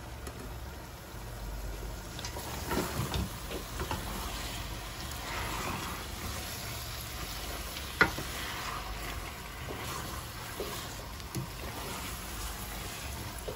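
Diced bottle gourd being sautéed and stirred in masala in a stainless steel pot with a wooden spoon: a steady sizzle with scraping and occasional knocks of the spoon on the pot, the sharpest about eight seconds in.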